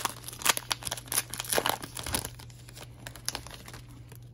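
Foil trading-card pack being torn open and crinkled by hand: a dense run of sharp crackles over the first couple of seconds, then a few softer rustles.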